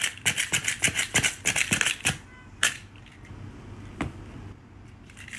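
A quick run of light, sharp taps or clicks, several a second, for about two seconds, then a few single clicks spaced out.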